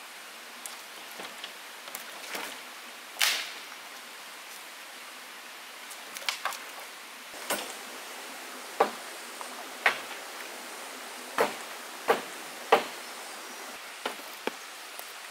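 A series of short, sharp knocks at irregular intervals, one every second or so, over a steady hiss.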